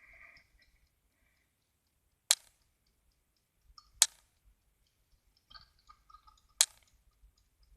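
Three sharp mechanical clicks, about two seconds apart, with faint small clicks between, from a 1960s chrome wind-up twin-bell alarm clock being handled and set.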